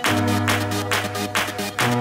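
Electronic dance music with a steady beat, about two beats a second, over a held bass line.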